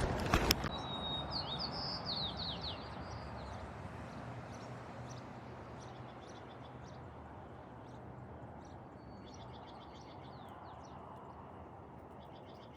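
A songbird singing: a high whistled note followed by a quick run of falling chirps, repeated a few times, over a steady rushing noise that slowly fades.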